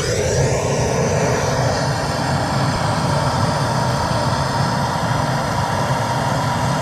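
Bernzomatic TS4000 propane torch burning steadily, an even rushing noise with a faint steady tone, as it is held to kindling to light a wood stove.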